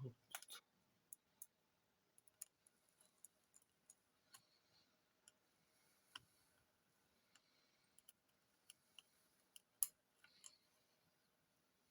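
Faint, irregular small clicks and ticks of small parts being handled during laptop assembly, with one sharper click about ten seconds in.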